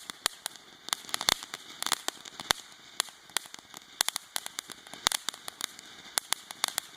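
Consumer fireworks going off: irregular sharp pops and crackles, several a second, with no big single bang.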